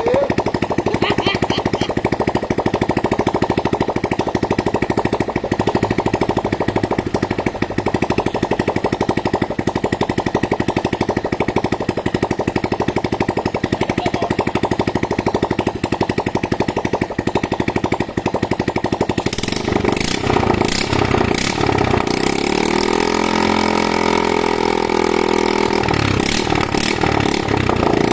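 Engine of a log-hauling winch running steadily at a fast, even beat. About two-thirds of the way through, a few clanks come in and the engine's pitch sags and then recovers.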